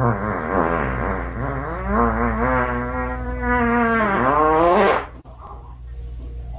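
A long, drawn-out howling call from a pet, held with a wavering, wobbling pitch and stopping about five seconds in.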